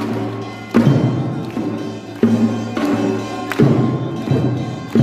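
Korean pungmul (farmers' band) percussion music: loud drum strokes about every half second to a second in an uneven rhythm, each ringing out.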